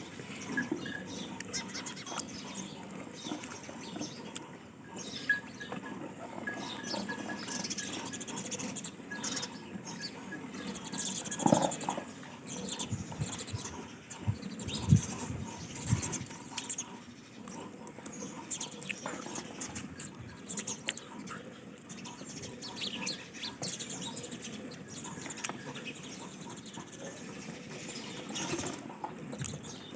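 Dairy farm ambience around penned buffaloes: scattered knocks and shuffling, with faint bird chirps. Two louder thumps come about halfway through.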